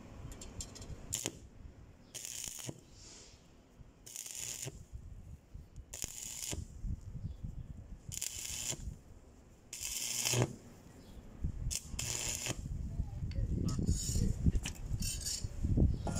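Stick (arc) welding on a steel exhaust pipe: the arc crackles and hisses in short bursts of under a second, about every two seconds, as the electrode is struck and the arc broken again and again. Near the end, a louder stretch of metallic clinks and rattles as the pipe is handled.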